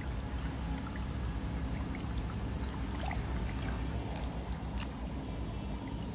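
Pond water sloshing with a few small splashes and slurps as koi feed at the surface from a hand, over a steady low rumble.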